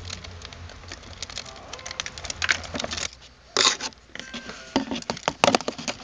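Plastic crinkling and clicking in irregular bursts as a plastic-bottle bird feeder and its bag of seed are handled, with two louder crackles in the second half.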